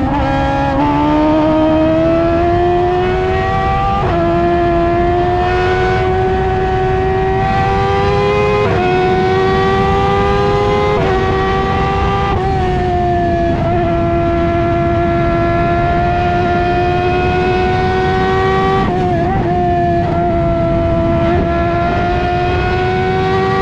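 F1000 open-wheel race car's 1000cc motorcycle engine at full racing speed, heard from the cockpit. The engine note climbs steadily through each gear and drops sharply at each gearchange, several times over.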